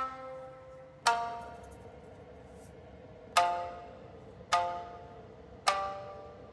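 Background music: a plucked string instrument sounds five single notes, each ringing and dying away, with a long pause after the second note.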